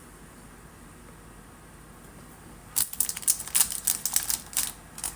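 Trading cards and plastic card sleeves being handled: a fast, irregular run of light plastic clicks and crinkles starts a little under three seconds in, after faint room hum.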